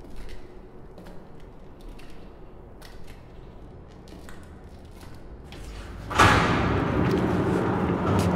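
Scattered light clicks and knocks over a low hum, then about six seconds in a loud, steady machine noise starts suddenly and keeps going.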